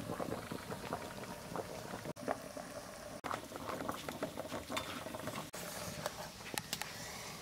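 Water boiling in a kadai around a steel tiffin box of egg mixture, a steady bubbling hiss with many small scattered pops, steaming the eggs.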